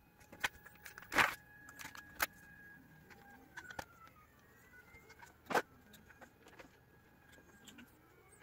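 Stepper motors of a hot-wire CNC foam cutter whining as they drive the wire along a curved cut, the pitch holding and then gliding up and down as the axes change speed. Several sharp clicks sound over it, the loudest about a second in and again past the middle.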